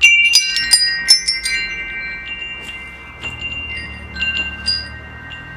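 Wind chimes ringing: a quick cluster of metal strikes at the start, then a few scattered strikes, their tones ringing on and slowly fading.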